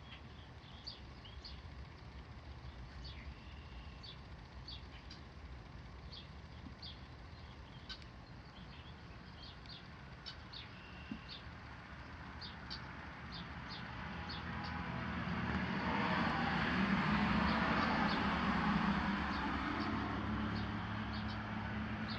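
Outdoor ambience: small birds chirping in short, repeated calls, while a vehicle is heard approaching and passing, its noise swelling about halfway through and loudest in the last third.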